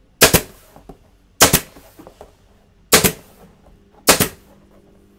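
Pneumatic staple gun firing four staples through foam board backing into the wooden stretcher of a canvas, each a sharp shot, about a second and a half apart.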